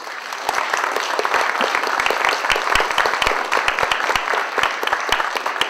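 Audience applauding: dense, steady clapping from many hands that swells within the first half-second.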